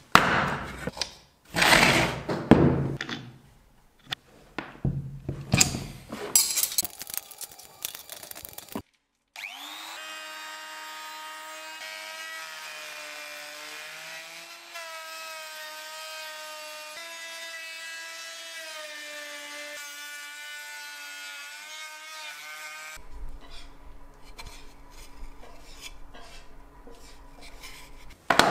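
Raitool 800 W wood router running with a steady high whine whose pitch dips and recovers as the bit cuts into a pine board. Before it comes several seconds of knocks and rustling from handling, and near the end a noisier stretch with a low hum.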